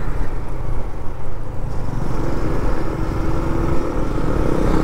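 Motorcycle riding at road speed under heavy low wind rumble on the microphone. A steady engine tone comes up about two seconds in.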